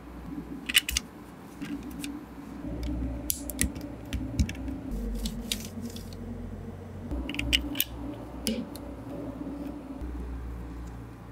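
Plastic Lego Technic bricks and pins clicking and snapping together as they are pressed into place by hand, in several short clusters of sharp clicks.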